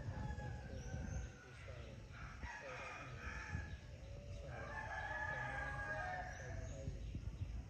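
Roosters crowing, long drawn-out calls one after another, over a steady low rumble.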